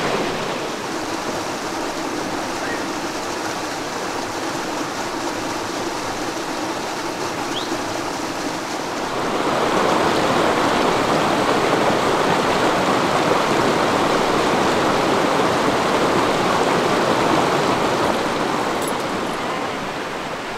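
Creek rushing over rocks in a steady roar of running water, which grows louder about nine seconds in and eases again near the end.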